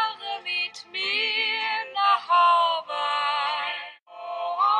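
Background music: a song with a high singing voice, held notes that waver with vibrato and break off every second or so.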